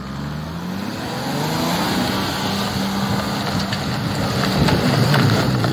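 Toyota Land Cruiser 100 series engine revving up under load as the 4x4 climbs a steep, muddy, snow-covered slope, its pitch rising for about two seconds and then held steady. The tyres churn through mud and stones, with a few sharp clicks, and the sound grows loudest near the end.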